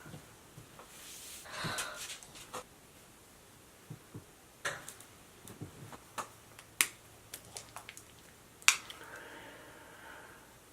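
A run of irregular sharp clicks and taps, the loudest about three-quarters of the way through. There is a soft rustling swell about a second and a half in, and another near the end.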